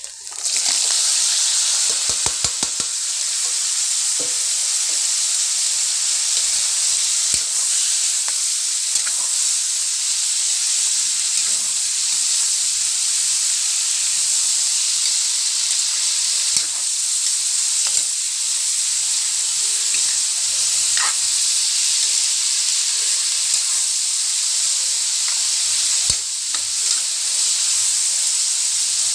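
Food frying in a hot pan: a loud, steady sizzle that starts abruptly about half a second in, with a few light clicks.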